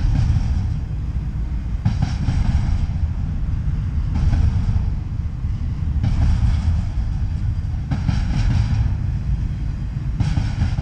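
Double-stack intermodal freight train rolling past: a steady low rumble, with a rattling hiss of wheels on rail that swells about every two seconds.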